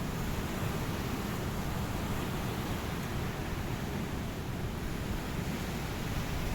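Ocean waves washing ashore: a steady rushing noise with no distinct breaks.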